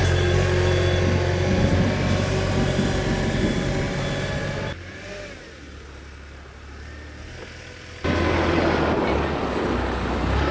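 Hitachi ZW40 compact wheel loader's diesel engine running as it pushes snow. It turns faint for about three seconds in the middle, then is close and loud again near the end.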